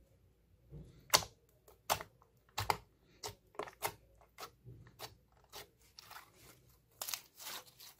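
Glossy slime being pressed and poked with fingers, making irregular sharp sticky clicks and pops, the loudest about a second in, with a quick run of them near the end.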